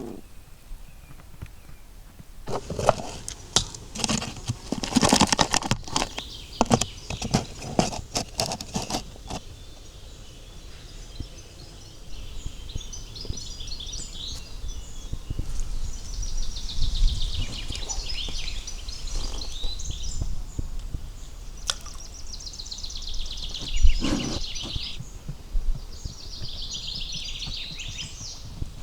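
Several seconds of knocks and rustling handling noise, followed by a songbird singing short phrases of quick notes that run downward in pitch, repeated several times.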